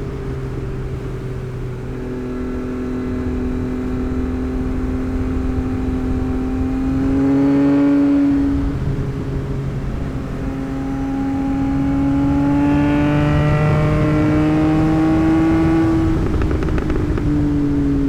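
Yamaha MT-09's 890 cc inline-three engine under way on the road, its pitch climbing slowly under moderate throttle, dropping with a gear change about nine seconds in, climbing again and easing off near the end.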